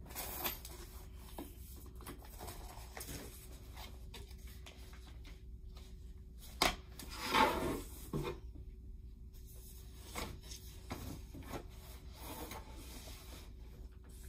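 Flat-pack furniture panels of white laminated particleboard being handled and moved: scattered light knocks and rubbing, with a sharp knock a little past halfway followed by about a second of scraping.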